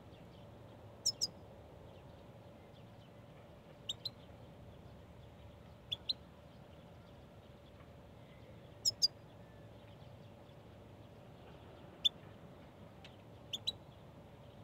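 Goldfinch giving short, sharp, high calls, mostly in quick pairs, six times at intervals of two to three seconds.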